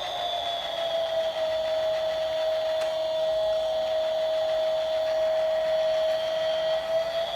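Small electric motor running with a steady whine, its pitch settling a little lower after the start and rising again near the end.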